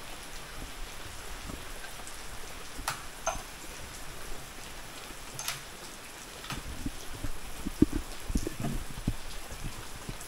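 Steady light rain falling, with a few scattered sharp clicks and low knocks.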